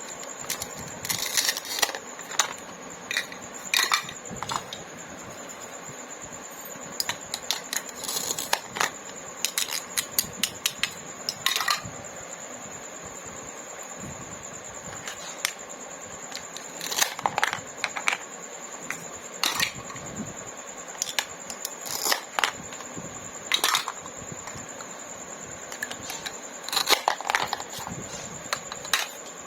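Plastic toy fruits and vegetables being cut apart and handled: scattered sharp clicks and taps of plastic pieces, with short crackly rasps where the pieces are pulled apart, coming in irregular clusters.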